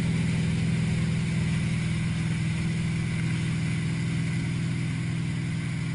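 Malibu wakeboard boat's inboard engine running steadily under way, with its wake churning.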